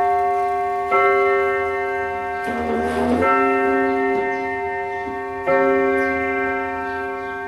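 Antique two-spring striking clock sounding its hour on the gong: three slow strikes about two seconds apart, each ringing on long and overlapping the next, with a short rattle of the strike mechanism just before the second blow.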